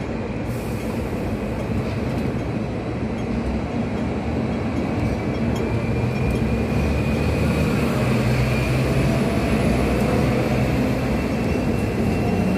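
Hong Kong double-decker tram running along street tracks, heard from on board: a steady rumble and rattle that grows a little louder, with a faint high squeal in the second half.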